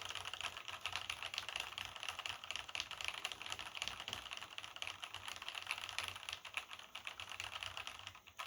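Fast continuous typing on a vintage Cherry G80 mechanical keyboard with Cherry MX Black linear switches and doubleshot keycaps: a dense, even clatter of keystrokes.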